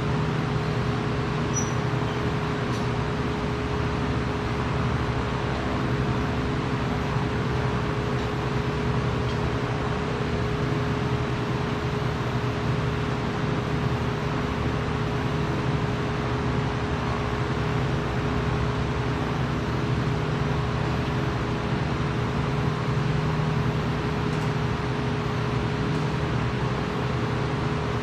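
Steady drone of workshop machinery, with a constant humming tone and low hum throughout, unchanging in level.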